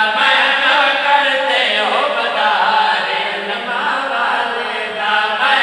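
A man chanting a qasida unaccompanied into a microphone, holding long notes that glide up and down.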